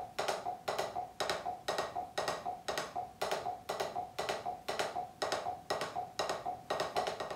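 Drumsticks playing double strokes on a practice pad: quick pairs of sharp taps falling between the beats of a metronome that beeps twice a second (120 bpm). The strokes alternate between the right and left hand.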